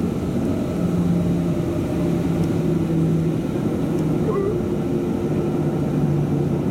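Boeing 737-700's CFM56-7 turbofan engines at low taxi thrust, heard from inside the cabin as a steady drone with a few held low tones.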